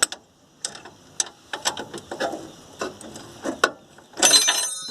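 Ratchet wrench clicking in short, irregular strokes as a bolt is tightened by hand. Near the end the metal wrench falls and clatters loudly, ringing briefly.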